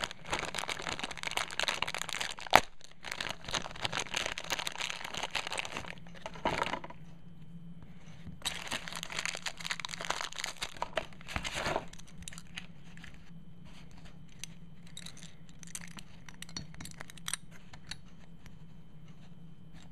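Clear plastic packaging bag crinkling and tearing as it is pulled open, in two spells: the first six seconds or so, and again from about 8 to 12 seconds in. After that come scattered light clicks as the small metal Beyblade wheel parts are handled.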